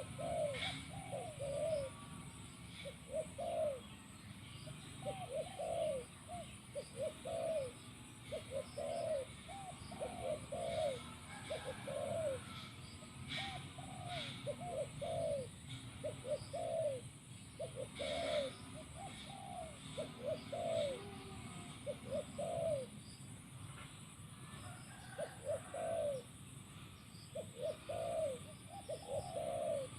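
A spotted dove, kept as a caged decoy bird, cooing over and over in short coos that come in quick groups of two or three.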